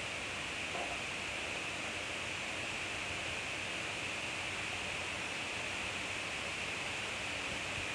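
Skewers of meat, shrimp and peppers sizzling on a hot grill: a steady hiss.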